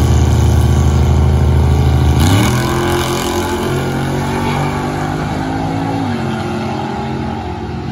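Drag-racing engines of two cars run loudly and steadily at the starting line. About two seconds in they launch at full throttle with a sharp rise in engine pitch. The pitch drops once about six seconds in, at a gear change, and the sound fades as the cars pull away down the strip.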